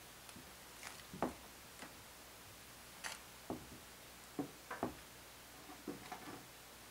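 Sparse light clicks and taps, about nine of them at uneven intervals, over quiet room tone.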